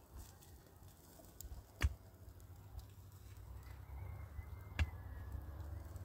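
Two sharp knocks about three seconds apart, over a low steady hum that grows louder in the second half.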